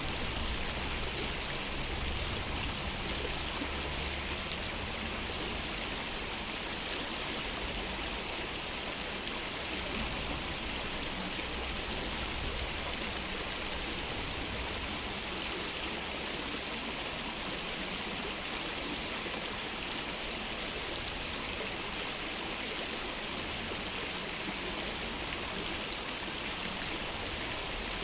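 Steady rushing of a flowing stream, an even water noise with no break or change.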